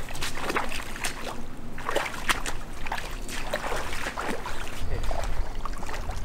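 Boots wading through shallow creek water: irregular sloshing and splashing steps.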